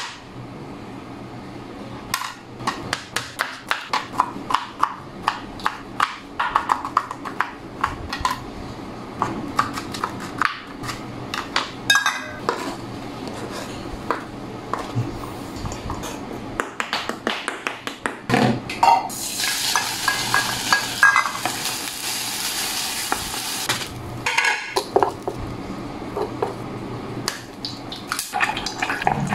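Kitchen cooking sounds: a run of quick knife strokes chopping shallots on a plastic cutting board, then a steady frying sizzle for several seconds, dubbed in as a sound effect. After the sizzle, utensils clink and scrape against a small pot and a plate.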